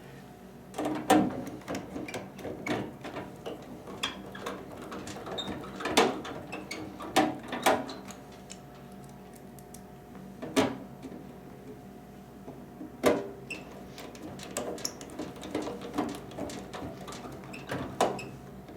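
Irregular clicks and clunks of screws and a hand tool against the microwave's sheet-metal housing as the blower's screws are put back in.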